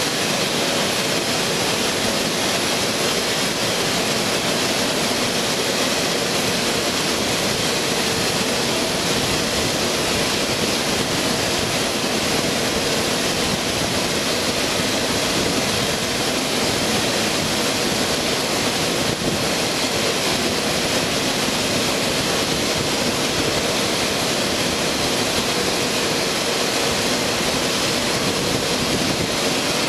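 A-10 Thunderbolt II's twin General Electric TF34 turbofan engines running steadily at taxi power: an even rush of jet noise with a thin, high, steady whine over it.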